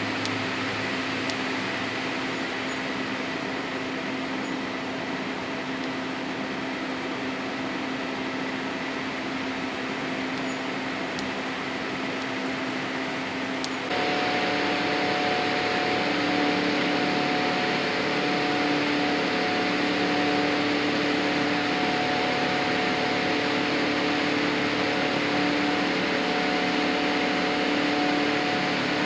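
Cabin noise of a Boeing 787-8 climbing after takeoff, heard beside its Rolls-Royce Trent 1000 engine: a steady rush of air and engine noise with a few faint humming tones. About halfway through, it changes abruptly to a slightly louder rush with different hum tones.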